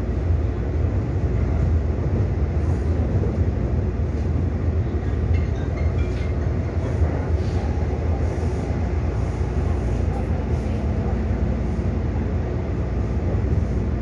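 Taipei Metro C301 electric multiple unit with IGBT-VVVF traction running at a steady speed, heard inside the car: an even, low running noise of wheels on rail and the train's drive.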